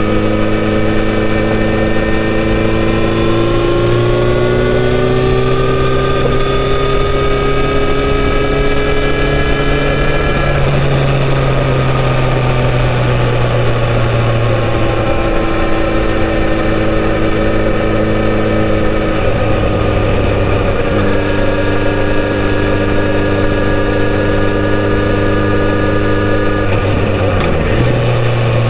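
Kawasaki Z900RS's inline-four engine through its stock exhaust, heard from the rider's seat under way, with wind rush. The engine note climbs steadily for several seconds, eases back, and then holds fairly level with small changes.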